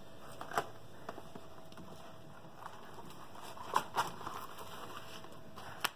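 Rolling pizza cutter wheel pressed through a baked pizza onto the cardboard beneath, with a few sharp clicks and taps among a quieter crunching and scraping.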